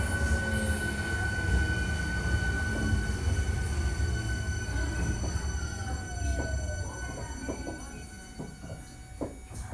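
Hankyu 1300 series train with a Toyo IGBT VVVF inverter running, heard from inside the car: a rumble and several steady whining tones, one tone falling in pitch in the first second. The sound fades as the train slows, with a few clicks from the rails in the last seconds.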